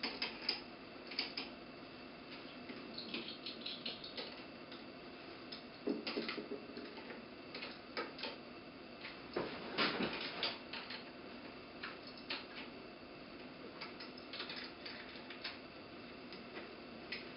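A wrench tightening a nut on the turbine's lever bridge: faint, irregular metallic clicks and light scrapes, a few louder knocks now and then.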